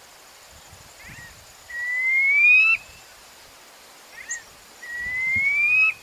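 Brown quail calling twice, about three seconds apart: each call is a short soft note followed by a drawn-out whistle rising in pitch for about a second and cut off sharply.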